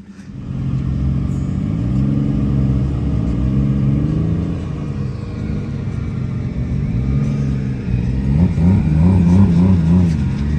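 Car engine revving, its pitch rising and falling several times, with a run of quick up-and-down revs near the end.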